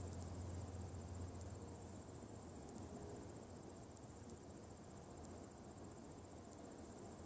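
A faint low hum that is strongest about the first second and then fades, under a steady high-pitched pulsing trill, recorded as a 'strange sky sound'.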